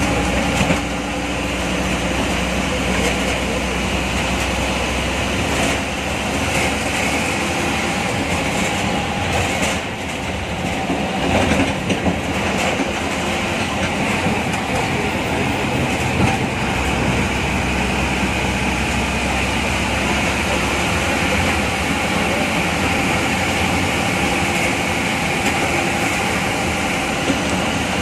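Inside the cabin of an MSRTC state transport bus under way: the diesel engine running with steady road noise and the body rattling, and a few louder knocks around the middle.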